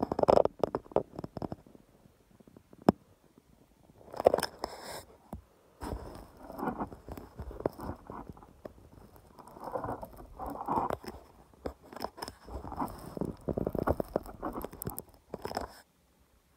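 Handling noise from the recording phone held to a scope: irregular rubbing and scraping with scattered clicks, and one sharp click about three seconds in, as the camera is shifted about.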